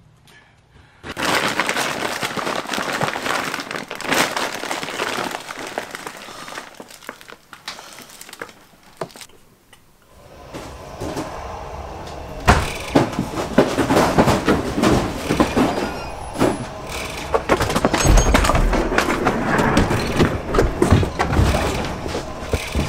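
Thin plastic bag crinkling and rustling loudly as it is handled, with many small crackles, until about nine seconds in. After a brief lull, a denser run of cracks and knocks builds and keeps going.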